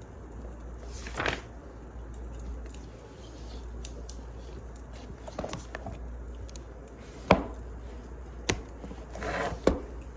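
Wood fire crackling: scattered sharp pops and snaps over a steady low rumble, the loudest snaps about seven and nine and a half seconds in.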